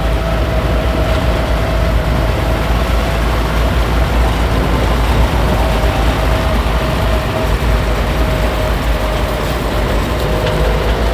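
Heavy vehicle engine running steadily, with a faint steady whine over a strong low rumble.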